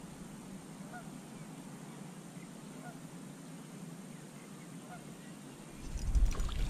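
Faint short bird calls, spaced about two seconds apart, over a quiet outdoor hum. About six seconds in, a louder burst of rumbling handling noise with a few sharp clicks as the fishing rod is swept up.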